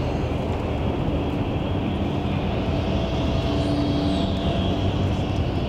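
Steady engine and tyre rumble inside a tour coach driving along a motorway, with a faint humming tone coming in about halfway through as a tanker truck passes close alongside.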